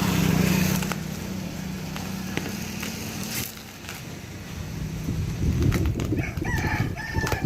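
A rooster crowing once near the end, with a long bending call, over the low rumble of passing motor traffic.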